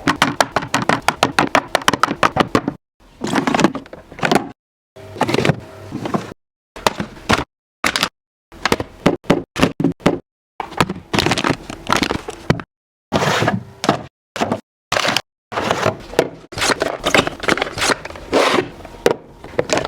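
Plastic fridge storage containers and food packaging being handled and set down: rapid taps, knocks and crinkling, in short clips separated by abrupt gaps of silence.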